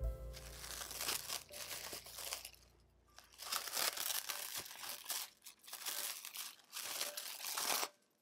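Plastic cling film crinkling as it is peeled off a glass bowl by hand. It comes in two spells, with a short lull about three seconds in, and stops just before the end.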